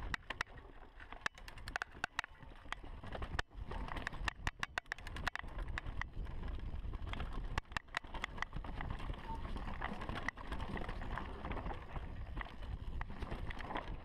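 2015 Giant Reign Advanced mountain bike ridden fast over a rough dirt trail: a steady rumble of tyres and wind, broken by many sharp, irregular clicks.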